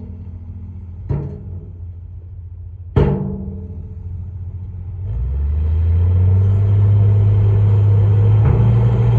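Heavy diesel engine of earthmoving machinery running low, with two loud metallic clanks about a second apart and then a second and a half later. After that the engine revs up and runs louder under load, stepping up once more near the end.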